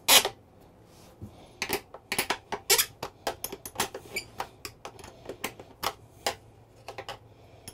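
Wrench clicking and tapping against the metal nuts on an RV toilet's floor-mounting bolts as they are loosened. It makes a string of irregular sharp clicks, a few a second, the loudest right at the start.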